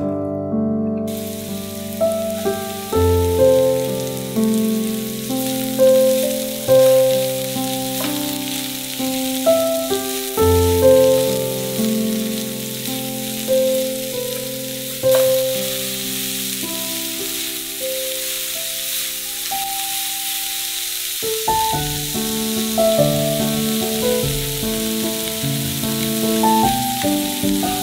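Food frying in oil in a pan: a steady sizzle that starts about a second in, under background piano music.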